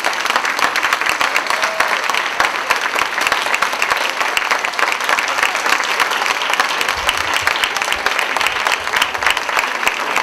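Audience applauding: a dense, steady clatter of many hands clapping at once.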